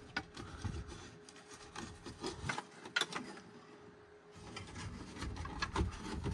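Plastic instrument-cluster trim bezel of a Ford F-150 dash being handled and pressed into place: plastic rubbing against the dash, with scattered light clicks and knocks.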